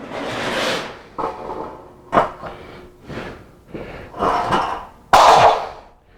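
Portable platform scaffold parts knocking and scraping as they are handled and set down, several separate knocks with the sharpest and loudest about five seconds in.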